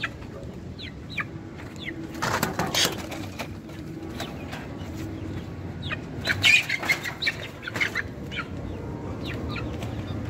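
Aseel chickens clucking and squawking in short, repeated calls, with loud bursts of wing flapping about two seconds in and again about six seconds in as the birds struggle and flap.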